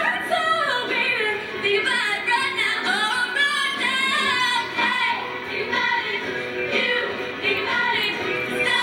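Show choir singing in performance, a female lead voice out front of the group.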